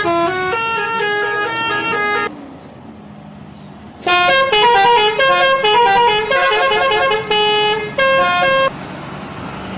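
Indonesian bus telolet horn, a multi-trumpet musical air horn, playing a quick tune of short stepping notes that stops about two seconds in. After a short lull a second, louder telolet tune of rapid notes plays from about four seconds until near nine seconds, then a low steady drone remains.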